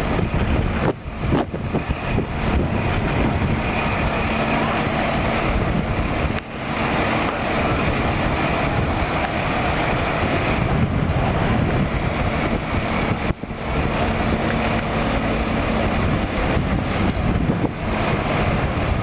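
Heavy diesel engine running steadily, with some wind noise on the microphone.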